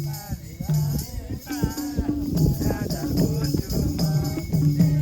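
Background music: a song with a singing voice that comes in about a second and a half in, over a repeating bass line.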